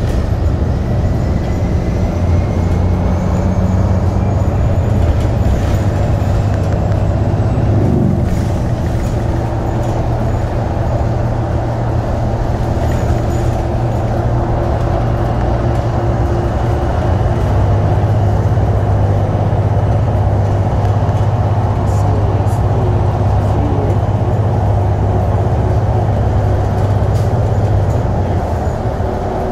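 Moving city bus heard from inside: a steady low engine drone over road noise, with a short change in the engine note about eight seconds in.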